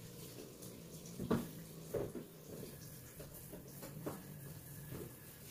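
Quiet room tone with a few faint, short knocks, the clearest about a second and a half in and again near two seconds and four seconds in.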